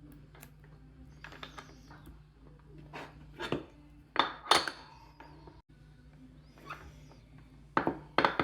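Small tools and parts clicking and clinking at irregular intervals during electrical connector repair work, the loudest knocks about four seconds in and near the end, over a steady low hum.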